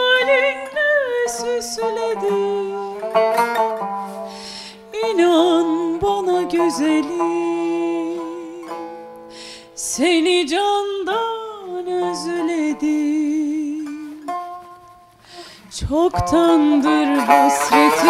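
A woman singing a slow Turkish classical song in makam Nihâvend, accompanied by a plucked long-necked tanbur. The voice glides and wavers between notes, and the music dips quietly for a moment past the midpoint before swelling again.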